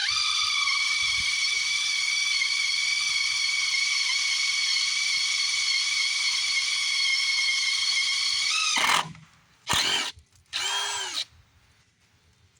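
Electric drill running at a steady high speed, drilling out a broken exhaust manifold stud. About nine seconds in its motor winds down, then it is run twice in short bursts before stopping.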